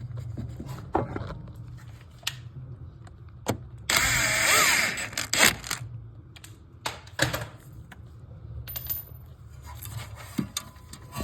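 A power tool, such as a drill or driver, runs in one burst of about a second and a half about four seconds in, its whine wavering in pitch. Scattered clicks and knocks of tools being handled sound around it, over a steady low hum.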